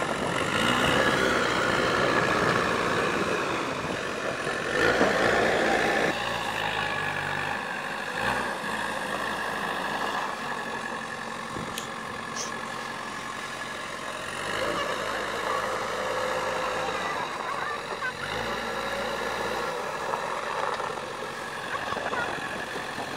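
JCB backhoe loader's diesel engine running steadily under load as the machine carries a heavy concrete pipe on its front loader, getting louder twice in the first six seconds.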